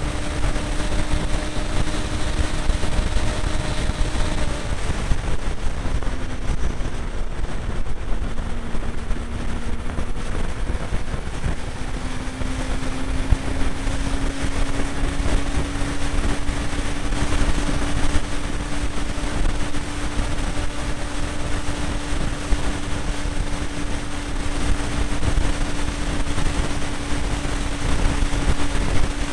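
Motorcycle engine running at motorway cruising speed under a heavy rush of wind noise. The engine note drops about five seconds in, then climbs back over the next several seconds and holds steady.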